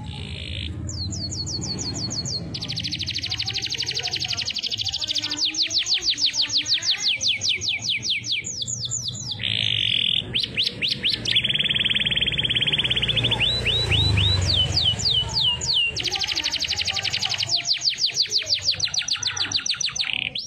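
Domestic canary singing continuously in fast trills of repeated sweeping notes, switching to a new phrase every second or two.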